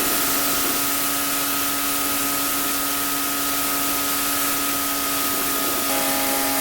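Pressure washer spraying a loud, steady jet of water onto paving, with the machine's steady running tone underneath.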